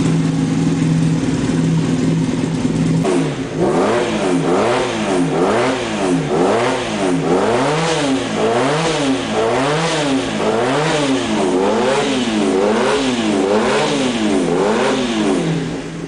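Honda CB450 DX parallel-twin engine idling steadily, then revved up and down about once a second before settling back to idle near the end. This is the twin's characteristic note, often likened to an inline four-cylinder.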